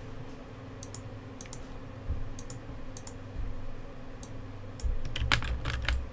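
Computer keyboard keys tapped in scattered single strokes, then a quick run of several keystrokes near the end, over a steady low hum.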